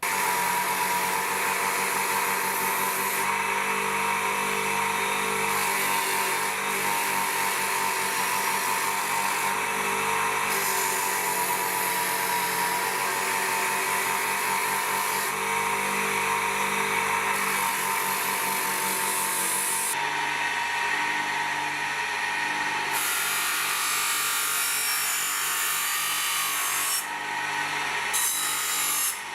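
Electric power tool running steadily as it works material, its tone changing abruptly every few seconds.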